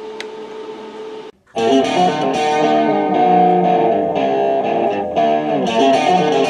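A steady hum, then a brief cut about a second and a half in, after which music with distorted electric guitar plays.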